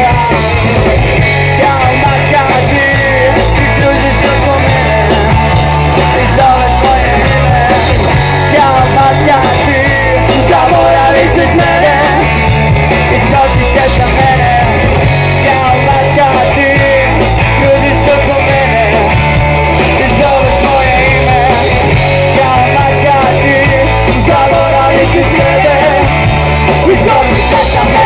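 Live rock band playing loud: electric guitars and drums under a male singer's voice.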